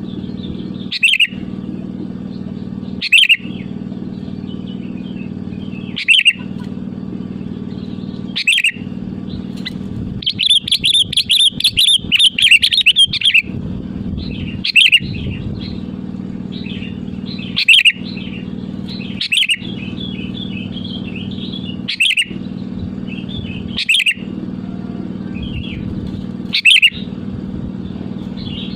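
Sooty-headed bulbul calling: short loud phrases every two to three seconds, with a longer chattering run of song about ten seconds in. A steady low hum runs underneath.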